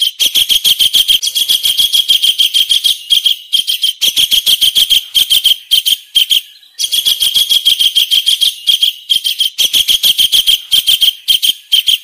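Recorded kingfisher calls: a fast run of high, shrill notes, about six a second, in two bouts with a short break just past halfway.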